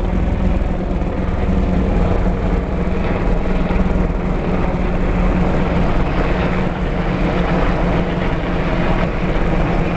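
Five military helicopters passing low overhead: a loud, steady drone of rotors and engines.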